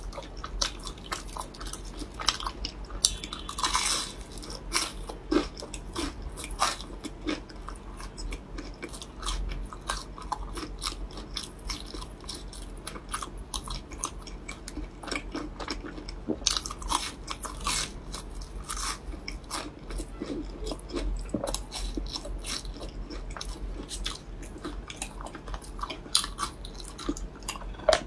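Close-up mouth sounds of biting and chewing a deep-fried glutinous rice cake (you zha gao) with a dark filling: its fried crust crunches in many short crisp clicks between the softer chewing.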